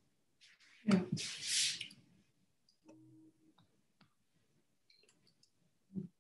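Scattered clicks and handling noise from someone working a computer over a video-call microphone, with a louder thump and a short hiss of noise about a second in and another thump near the end.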